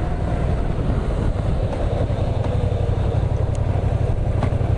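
Yamaha MT-07's 689 cc parallel-twin engine running at low, steady revs while riding, a fast even pulsing exhaust note, with a couple of faint clicks near the end.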